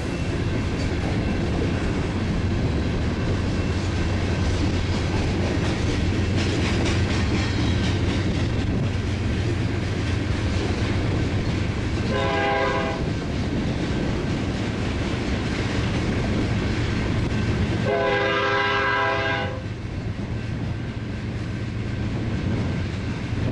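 Diesel freight locomotives and their cars rumbling steadily past. A locomotive air horn sounds a short blast about halfway through and a longer blast a few seconds later.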